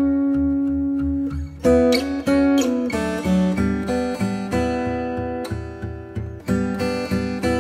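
Acoustic guitar music, plucked notes and strummed chords; the first chord is left to ring for over a second before new notes come in.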